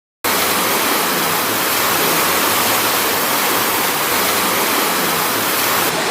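Steady rushing water, starting abruptly a moment in and holding at an even level.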